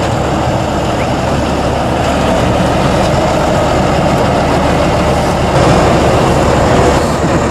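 Heavy diesel engine of an 8x8 off-road trial truck running steadily as the truck crawls through rough terrain, growing a little louder about three-quarters of the way in.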